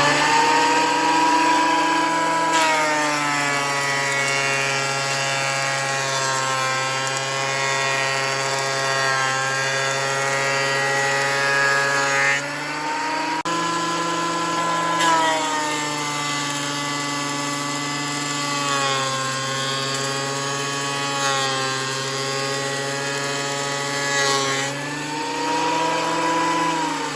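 An electric thickness planer runs at full speed. About two seconds in, its motor pitch sags as a board goes through the cutter head, and it recovers around thirteen seconds. The pitch sags again from about fifteen seconds to twenty-five seconds, as the planer takes another cut, then picks back up near the end.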